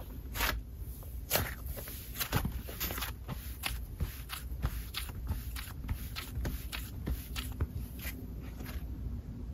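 Thick, fluffy cloud dough slime being squeezed and stretched by hand, giving irregular soft crunches and crackling clicks, a few each second.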